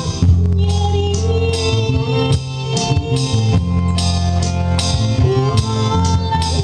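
Background music with a steady beat, sustained bass notes and a melody line.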